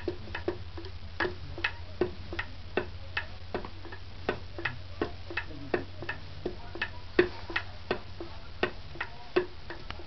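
Bedouin coffee mortar and pestle (mihbash) pounding coffee beans, with the pestle struck in a steady musical rhythm of about two to three knocks a second and some strokes louder than others.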